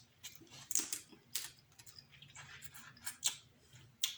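Close-miked eating of seafood boil (snow crab legs, lobster tail): wet chewing, with sharp mouth clicks and smacks.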